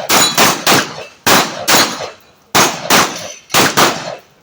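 Rapid shotgun fire at steel plate targets: about nine loud blasts in quick succession, many coming in pairs less than half a second apart, each followed by a short echoing tail.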